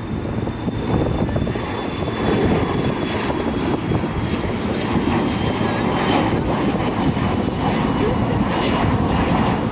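Twin jet engines of an American Eagle Embraer E-Jet regional airliner at takeoff thrust as it climbs out: a loud, steady rumbling roar, with a faint high whine that slowly drops in pitch over the first few seconds.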